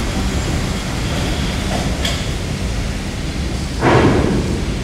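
R44 subway train on the Staten Island Railway running on the track, a steady low rumble of wheels on rail, with a brief louder swell about four seconds in.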